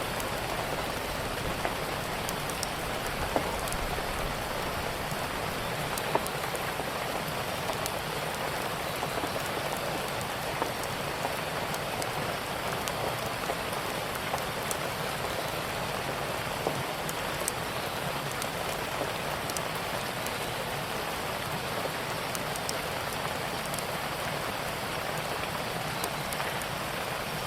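Steady heavy rain, a dense even hiss, with scattered small pops and clicks from a crackling fire.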